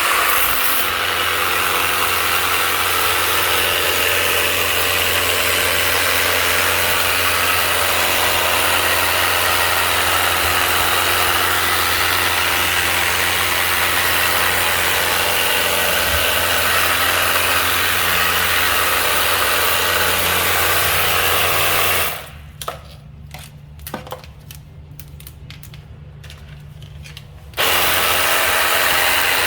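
Colton pressure washer running with its water jet spraying. About three-quarters of the way through it cuts out for several seconds, leaving a low hum and a few clicks, then starts up again.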